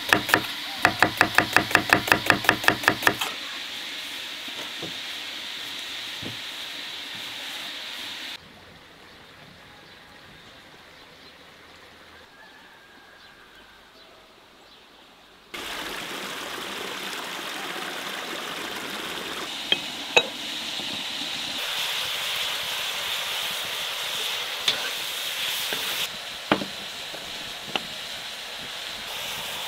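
Knife chopping onion on a wooden cutting board in fast, even strokes, about five a second, stopping about three seconds in. After that, a steady quiet outdoor background, with a few sharp clinks of clay pot lids near the end.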